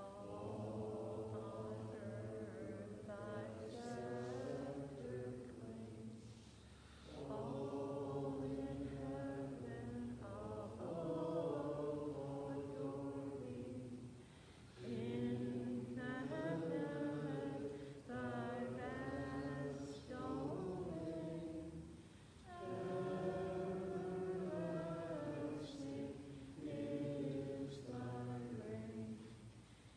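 Voices singing a slow hymn at the close of Mass, in long phrases of about seven seconds with short breaks between them.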